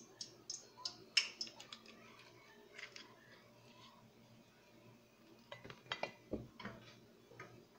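Cooking oil poured from a glass bottle into a non-stick wok, then faint irregular crackling and ticking as the oil heats in the pan.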